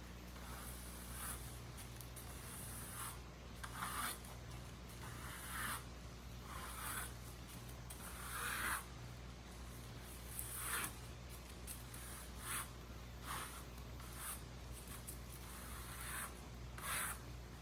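Irregular scraping strokes, roughly one every second, loudest around 4, 8 and 11 seconds in, over a steady low hum.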